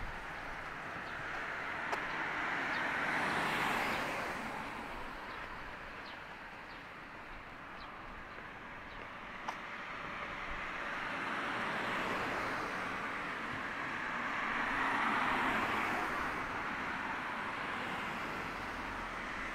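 Cars passing on a road: a rush of tyre and engine noise swells and fades about three seconds in, then builds again to a longer pass near the end.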